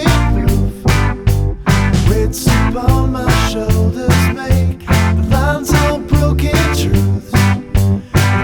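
Background rock song with a steady drum beat, guitar and singing.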